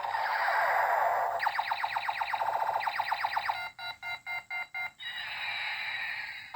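Electronic sound effects from a battery-powered toy gun's sound chip. Falling laser-like sweeps lead into a fast run of chirps about eight a second. About halfway through comes a burst of chopped beeps, about five a second, and it ends with a long falling sweep.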